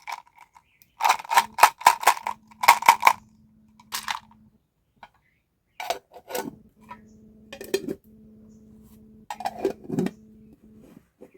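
M&M's candies clattering against a hard dish in several quick bursts of small sharp clicks, over a faint steady low hum.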